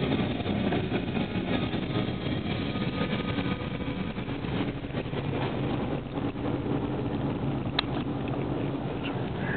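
Steady engine and road noise of a car driving slowly, heard from inside the cabin, with one short click about eight seconds in.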